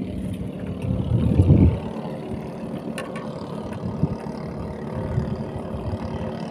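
A motor engine running with a steady hum, with a louder low rumble about a second in.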